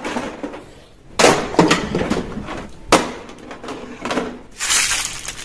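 A sharp knock followed by a short clatter about a second in, another sharp knock about two seconds later, and a brief hissing rustle near the end.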